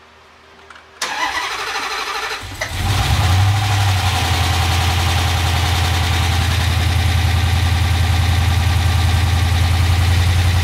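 The 5.7 Hemi V8 of a 2009 Dodge Challenger R/T, fitted with a Comp Cams HRT Stage 2 cam, cranks on the starter about a second in, catches after under two seconds and settles into a steady idle. This is its first start-up on the new cam, with no tune for it yet.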